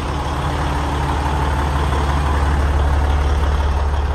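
Semi-truck's diesel engine idling with a steady low rumble that grows gradually louder.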